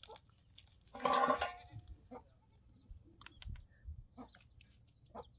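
A chicken gives one loud squawk about a second in, with a few faint high bird chirps and small clicks of handling afterwards.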